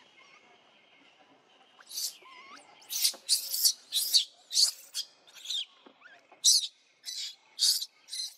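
Baby long-tailed macaque screaming in distress while its mother grips it: about a dozen short, shrill, high-pitched cries in quick succession, starting about two seconds in.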